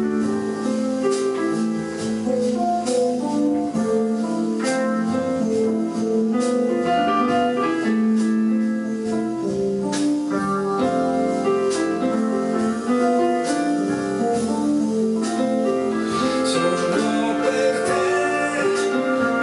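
Music with a piano-style keyboard playing chords and melody over a soft accompaniment.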